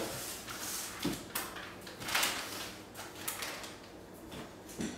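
Kitchen handling noises: soft knocks about a second in and again near the end, with a longer rustling sweep about two seconds in.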